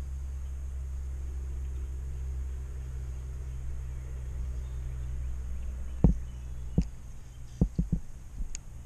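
Steady low rumble of wind buffeting the camera microphone. From about six seconds in, half a dozen short, dull thumps follow.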